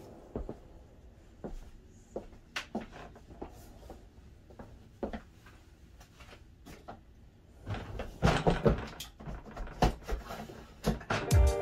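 A hard-shell polycarbonate suitcase being handled: scattered light clicks and knocks, with a denser run of clattering about eight seconds in and again near the end.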